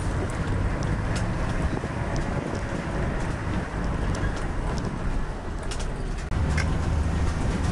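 4x4 vehicle driving on a rough dirt road, heard from an open window: low engine and tyre rumble with wind noise and scattered clicks and rattles. The rumble grows louder about six seconds in.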